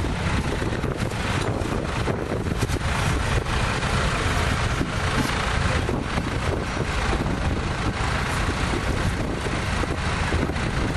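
Tractor engine running steadily at a ploughing match, an even low drone with no change in pace.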